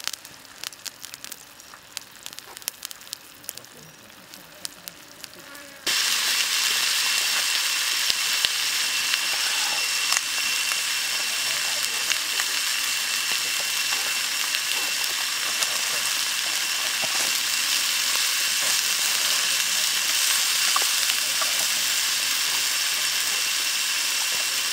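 Pig liver frying in a metal pan over wood coals: faint scattered pops and crackles at first, then about six seconds in a sudden jump to loud, steady sizzling.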